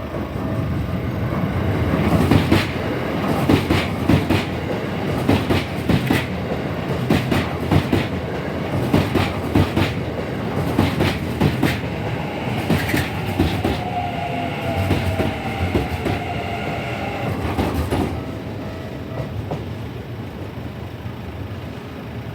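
Keikyu New 1000 series electric train passing over a level crossing, its wheels clacking rhythmically over the rail joints for about sixteen seconds, with a whining tone in the second half of the pass. The level-crossing warning bell rings with steady tones at the start, and the sound drops off after the train has gone by.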